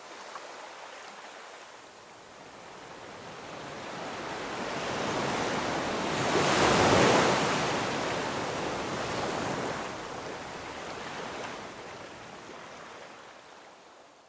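A long, washing noise swell like surf, with no tune in it, that builds to a peak about halfway through and then slowly fades out, closing the outro music.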